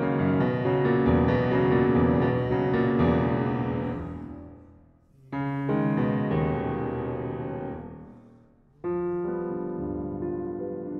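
Background piano music: slow, sustained chords that die away almost to nothing, with a fresh chord struck about five seconds in and another near nine seconds.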